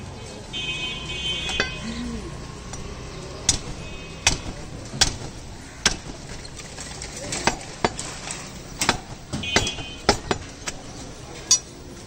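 Butcher chopping beef on a chopping block: about a dozen sharp, irregular knocks, sometimes two in quick succession, over steady market background noise.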